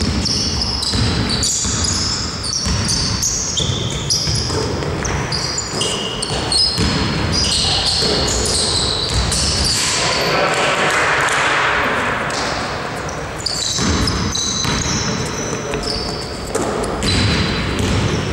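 Basketball game in a sports hall: sneakers squeaking sharply and often on the court floor, a basketball bouncing, and players calling out, all echoing in the large hall.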